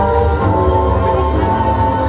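Music with long held notes over a steady deep bass.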